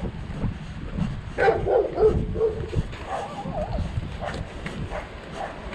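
Wind buffeting the microphone while riding, with a dog barking and yelping several times from about one and a half to three seconds in.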